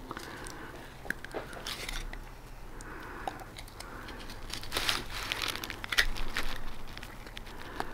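Two-part epoxy repair compound being mixed by hand: irregular scraping and crinkling strokes of a stir stick working the thick paste, loudest about five and six seconds in.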